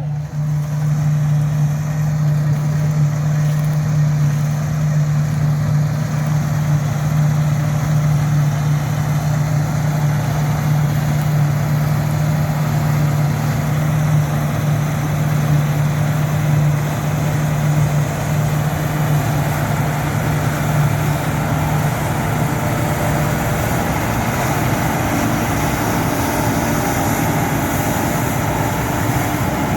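Heavy diesel farm machinery running steadily, with a strong low hum that fades somewhat about three-quarters of the way through.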